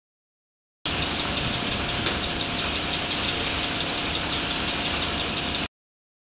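Cap-cutting machine for 28 mm roll-on caps running at a steady rate, with a faint steady tone under the mechanical noise. The sound starts abruptly about a second in and cuts off shortly before the end.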